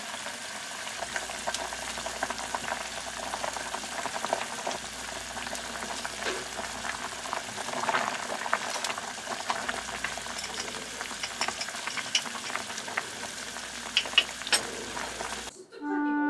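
Pot of seaweed soup boiling hard, a steady bubbling hiss full of small pops, with a ladle stirring through it. Near the end it gives way to music.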